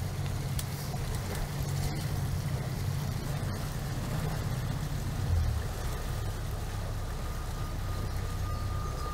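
Kent 28 Launch motorboat's engine running steadily at low cruising speed, a low drone with water and wind noise over it. A faint, steady high whine joins about six seconds in.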